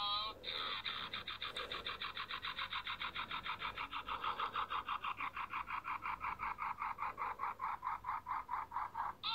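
A cartoon sound effect played from a screen: a fast, even train of short buzzy pulses, about six a second, that starts about half a second in and cuts off abruptly near the end.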